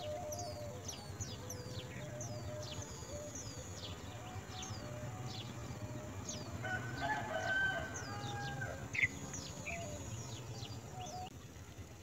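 Nestlings begging in the nest: a rapid run of thin, high peeps, each falling in pitch, several a second, stopping near the end. A lower, drawn-out sound rises under them around the middle.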